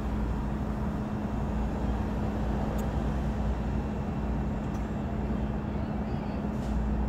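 Steady road and engine noise heard inside a car cabin while driving: a low rumble with a constant hum.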